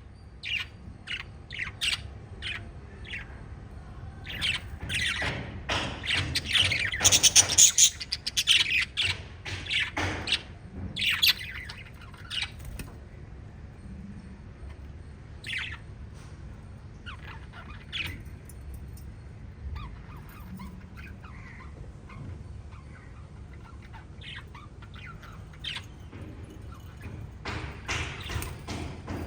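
Several lovebirds chirping: a busy stretch of overlapping short, sharp chirps early on, scattered single calls through the middle, and more chirping again near the end. A steady low hum runs underneath.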